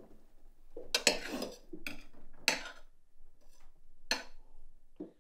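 Cutlery clinking and scraping against dinner plates during a meal: four or five separate clinks and scrapes about a second apart, with a longer run of clatter about a second in.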